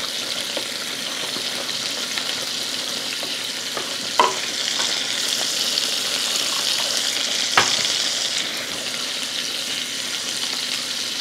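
Sea scallops searing in hot olive oil in a nonstick pan, a steady sizzle, under the stirring of risotto in a stainless steel pot. The hiss grows brighter from about four to eight seconds in, while stock is poured into the pot, and two sharp knocks sound about four and seven and a half seconds in.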